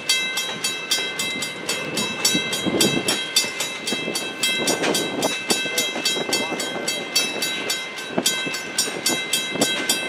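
A freight train of empty centerbeam flatcars rolling past, wheels rumbling and clacking over the rail joints with scattered thumps. Over it, a level-crossing bell rings rapidly and evenly, about four to five strikes a second.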